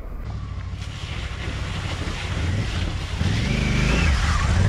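Honda Africa Twin CRF1100L's parallel-twin engine pulling a motorcycle through a shallow ford, with water splashing under the tyres. The engine grows louder in the second half as the bike comes closer.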